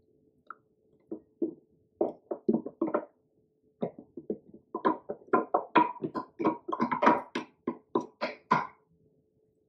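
Wooden spoon scraping and knocking inside a glass jar while scooping olive relish into a bowl of pasta: a run of quick, irregular taps and scrapes that come thicker from about five seconds in. A faint steady hum lies under it.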